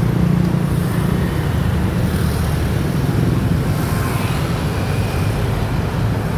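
Motorbike engine running steadily with road and traffic noise, a constant low hum under a noisy rush.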